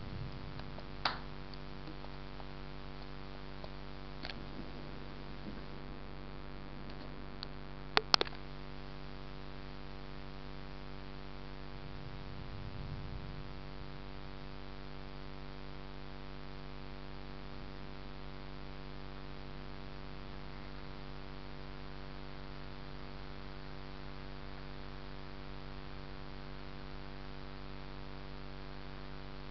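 A steady hum runs through, broken by a few sharp clicks about a second, four seconds and eight seconds in, the last a quick double click. Around twelve seconds in comes a faint low rumble of distant thunder from the approaching storm.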